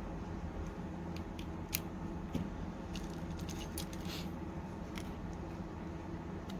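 Scattered light clicks and small scrapes of repair tools on a phone's small parts, over a steady low hum.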